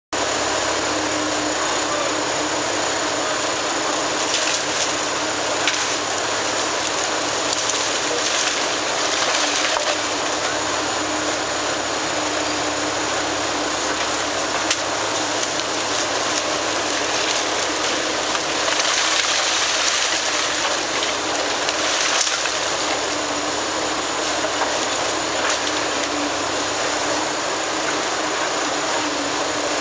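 Liebherr tracked demolition excavator running with a steady diesel hum while it tears into a building, with rubble and debris crashing and rattling down in repeated surges, several times louder.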